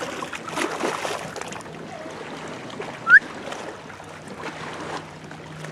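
Lake water splashing and lapping around a wading dog, with a faint steady low hum underneath. About three seconds in, one short high squeak rises quickly in pitch and is the loudest sound.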